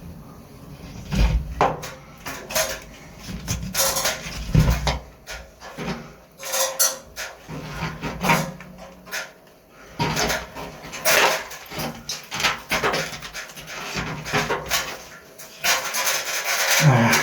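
Irregular scraping and rubbing strokes with occasional knocks, about one or two a second, from hand work on the water pipes and their fittings.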